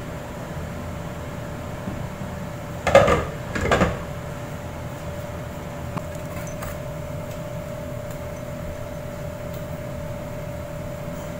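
Cookware handled at a gas stove: two short, loud clatters of pan and utensils close together about three seconds in, over a steady background hum.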